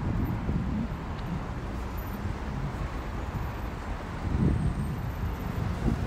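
City street ambience: a steady low rumble of passing traffic, swelling briefly about four and a half seconds in.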